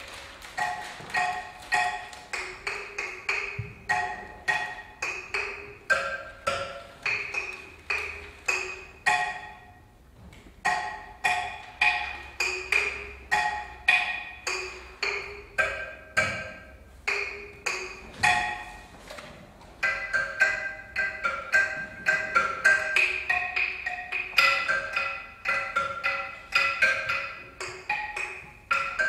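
Live tuned percussion: quick struck notes that ring briefly at a few pitches, played in a flowing repeating pattern. It thins out around ten seconds in and gets denser and louder in the last third.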